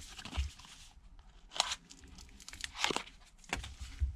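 Adhesive crackling and tearing as the screen of a Samsung Galaxy Note 9 is pried away from its frame with a thin plastic card, in a few short bursts.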